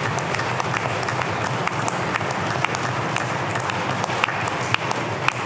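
Applause: many people clapping their hands together, a dense stream of sharp claps.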